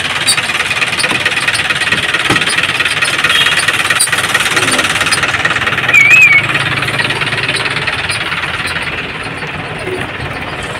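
Engine of the bus she has just stepped off, running steadily close by. About six seconds in, a scooter passes close, with a brief wavering beep at the loudest moment.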